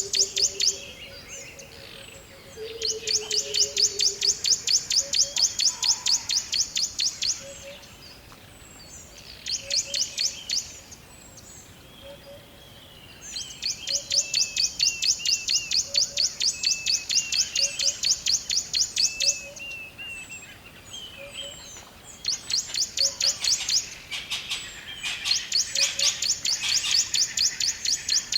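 Birds chirping: long, rapid, very high trills lasting a few seconds each, repeated with short pauses, with lower warbling notes and a soft low call repeating underneath.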